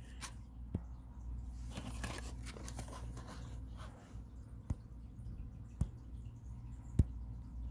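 Faint rustling of cardboard pudding-cup packaging being handled, with a few sharp clicks, over a low steady hum.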